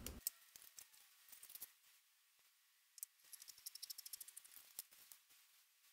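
Scissors cutting through paper pattern tissue and craft paper: faint, scattered snips and paper rustle, with a run of quick snips between about three and five seconds in.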